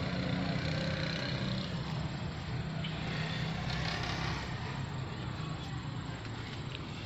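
Cats fighting, growling and yowling at each other over a steady low hum that eases somewhat after about four seconds.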